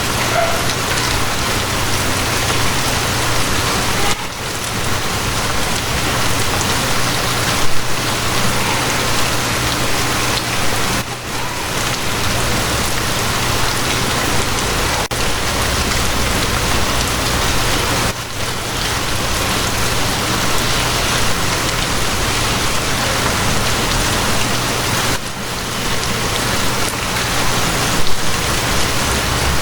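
Steady rain falling on a surface, an even hiss, with a steady low hum underneath. The sound dips briefly about every seven seconds.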